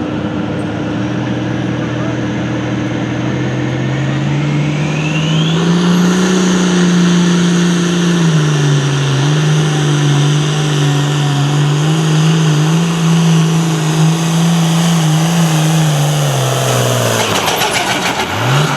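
Turbocharged hot farm pulling tractor engine revving up as the turbo whine climbs, then running hard at high revs under load for about ten seconds. Near the end the revs drop off as the pull ends.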